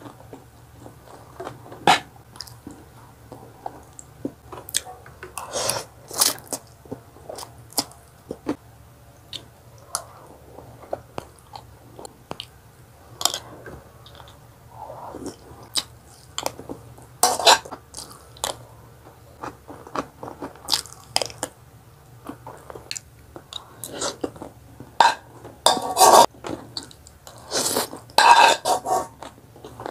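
Close-up chewing of stir-fried instant noodles with cabbage and carrot, with a crunch now and then. A metal fork clicks and scrapes against a nonstick pan, most busily near the end.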